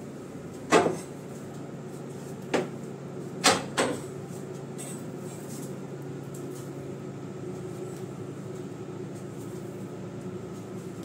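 A push broom with stiff bristles knocking on a tiled floor, four sharp knocks in the first four seconds, over a steady machine hum.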